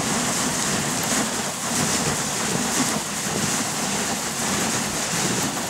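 Steady hissing rush of a dog sled running over snow: the runners and the huskies' paws crunching along the snow surface.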